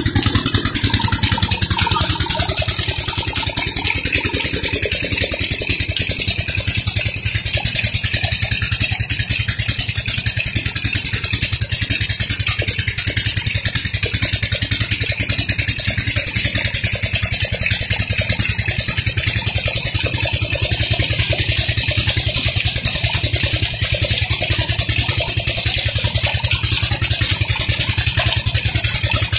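Old stationary diesel engine running steadily, chugging at an even rate as it belt-drives a tube-well water pump. Water gushes from the pump's outlet pipe and splashes into a tank.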